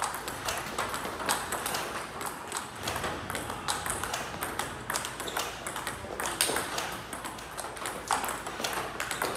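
Table tennis rally: the plastic ball clicking off paddles and bouncing on the table, many quick irregular clicks.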